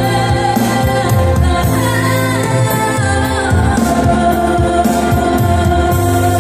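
A woman singing a song live through a microphone and PA, accompanied by an electronic keyboard with a steady bass line.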